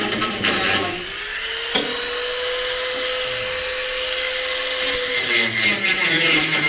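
Handheld power tool grinding the steel of a car's suspension turret. It starts with a rough, loaded grinding noise. About a second in, the tool comes off the work and its motor whine rises and holds steady. Near five seconds the whine drops again as the tool bites back into the metal.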